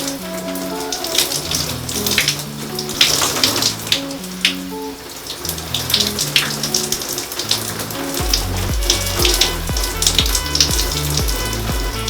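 Electronic background music with a stepping melody; a deep, pulsing bass line comes in about eight seconds in.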